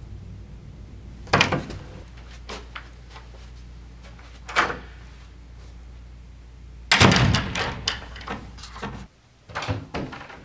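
A door being opened: a metal lever handle and its latch clicking, and knocks from the wooden door, with the loudest cluster of knocks and clatter about seven seconds in. A steady low hum underneath cuts off suddenly about nine seconds in.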